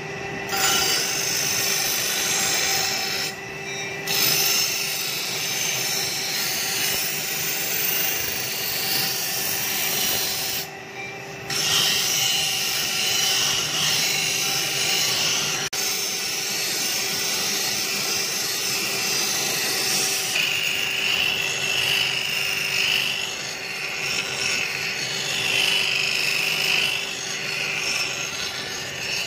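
Steel sickle blade being ground on a belt-driven abrasive grinding wheel: a steady, harsh grinding hiss of steel on stone over the constant hum of the running machine. The grinding breaks off briefly twice, a few seconds in and about eleven seconds in, as the blade comes off the wheel.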